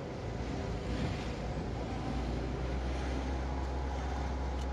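A car being driven, with a steady low rumble of engine and road noise.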